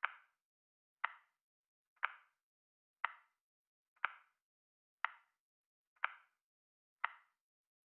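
Countdown timer ticking, one short, dry tick each second, eight in all, with silence between.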